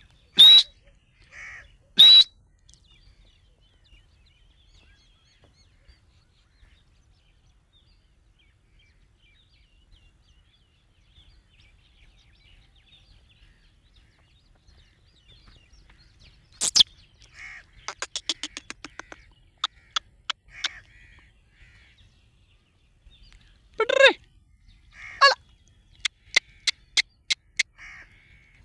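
Black francolin calling in loud, harsh outbursts, some of them rattling runs of rapid clicks, with quiet gaps between.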